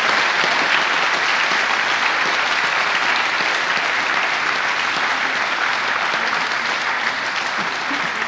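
Audience applauding: a steady, dense round of clapping from a large crowd, tapering slightly near the end.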